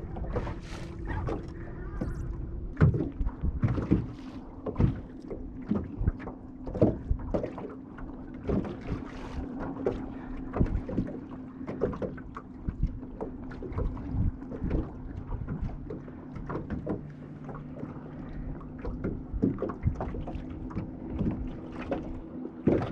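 Small waves slapping and knocking irregularly against a fishing boat's hull, over a steady low motor hum that drops in pitch about two seconds in.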